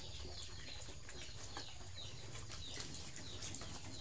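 Birds chirping: many short falling chirps, one after another, over a steady low hum.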